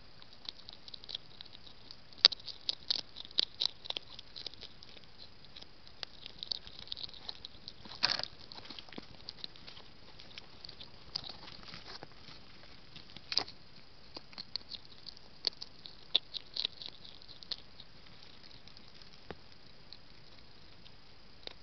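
Hedgehog feeding at close range: irregular sharp clicks and smacks, some in quick clusters, with the loudest about eight seconds in, thinning out near the end.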